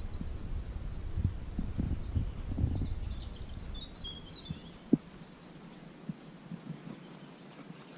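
Low thumping rumble of wind buffeting the microphone, dying down about halfway through. A short bird call comes about three and a half seconds in, and a single sharp tap about five seconds in.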